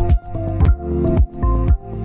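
Electronic background music with a steady beat about twice a second under sustained synth chords.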